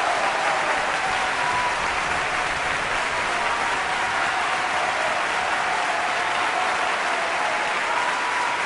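Steady applause, many hands clapping at an even level.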